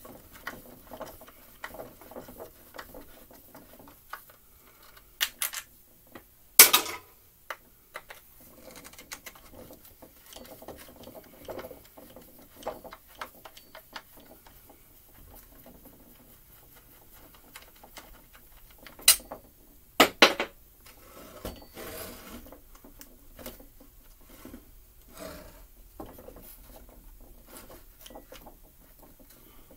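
Screwdriver and hands working on a McCulloch Mini Mac 30 chainsaw's plastic housing: scattered small clicks, scrapes and rattles as screws and parts are worked loose. A few sharper knocks stand out, the loudest about seven seconds in and a close pair around twenty seconds in.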